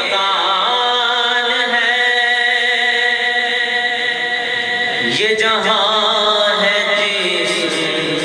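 A man chanting an Urdu hamd in praise of God, drawing out long held notes with slow melodic turns. He breaks off about five seconds in and begins a new phrase.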